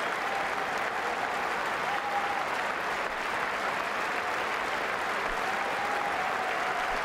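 Large stadium crowd applauding in a long, steady ovation: dense, unbroken clapping from thousands of spectators.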